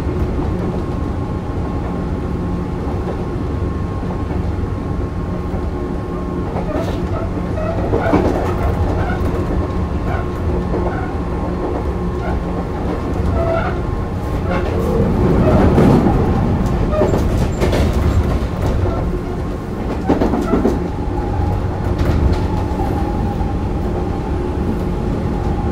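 Sotetsu New 7000 series electric train running, with its early Hitachi GTO-VVVF drive. A steady low rumble carries a few steady tones, with scattered clicks of the wheels over rail joints. The sound swells briefly about midway.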